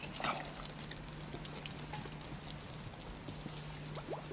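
Wet mud squelching and muddy water dribbling as a bare hand digs into a mangrove mud crab burrow, with many small clicks and a louder slosh right at the start.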